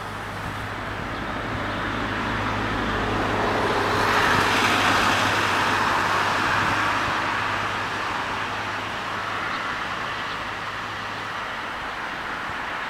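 Road traffic: a motor vehicle passes, its noise swelling to a peak about five seconds in and then fading, over a steady low engine hum that stops near the end.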